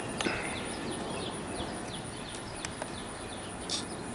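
Outdoor background with small birds chirping over and over in short, falling notes, and a couple of faint sharp clicks.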